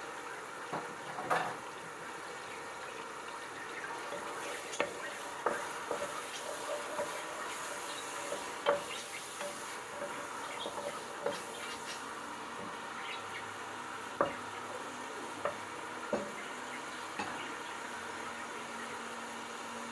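Diced tomato and onion sizzling steadily in olive oil while a wooden spatula stirs them, knocking against the side of the metal pot now and then.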